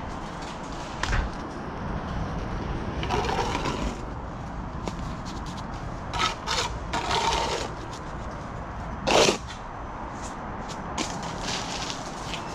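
Bricklaying work: a steel trowel scraping mortar onto a perforated clay brick, among scattered knocks, scrapes and clicks of tools and bricks on metal scaffolding, over steady low background noise. One louder knock about nine seconds in.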